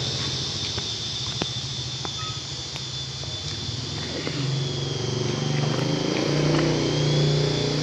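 Remote-control toy combat helicopter running: a steady high-pitched whine over a low pulsing hum that swells about halfway through, with a few light clicks.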